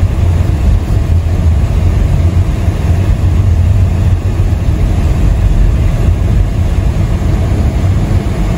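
Car cabin noise while driving on a snow-covered road: a steady low rumble of engine and tyres.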